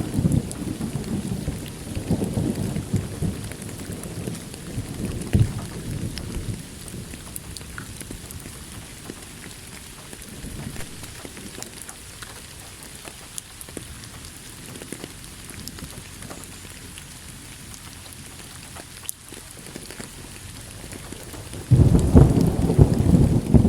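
Steady heavy rain with thunder. A low rumble at the start fades out over the first several seconds, and a sudden loud thunderclap rumbles in near the end.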